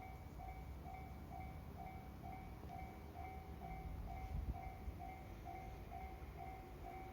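Japanese railway level crossing warning bell ringing steadily, an electronic two-tone clang repeating a little over twice a second, over a low rumble.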